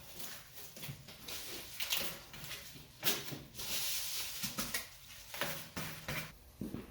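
Handling noise from working with the duct and foil bubble-wrap insulation: a run of irregular rustles, clicks and light knocks, with a longer hissing rustle about halfway through.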